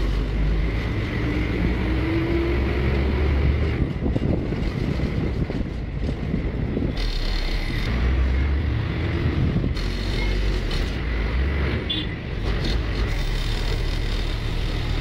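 Steady engine and road noise of a moving vehicle in city traffic, with a low rumble of wind on the microphone.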